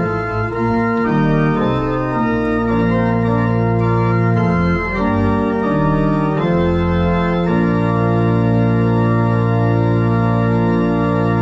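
Church pipe organ playing a sequence of sustained chords, settling about halfway through into one long held final chord.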